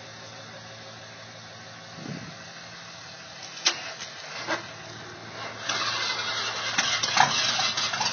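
Old pickup truck's engine, primed by pouring gas into the carburetor, starts about five and a half seconds in and runs loudly and roughly, after a few knocks.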